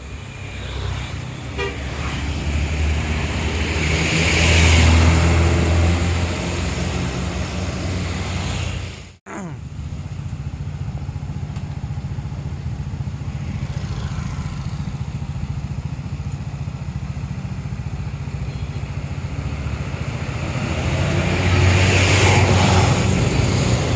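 Big coaches' diesel engines passing close one after another, swelling loudest about five seconds in and again near the end. The sound breaks off abruptly at a cut about nine seconds in.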